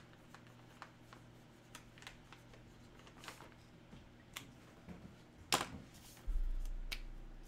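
Faint, scattered clicks and taps of objects being handled, with a sharper knock about five and a half seconds in and a low thud a moment later that fades away.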